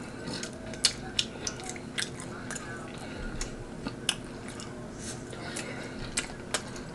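A person chewing rotisserie chicken, with scattered sharp wet mouth clicks and smacks about once or twice a second over a faint steady hum.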